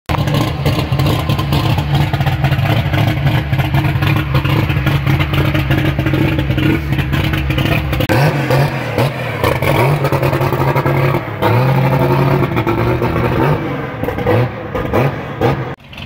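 Chevrolet Opala straight-six engine running at a steady idle, with several short throttle blips in the second half.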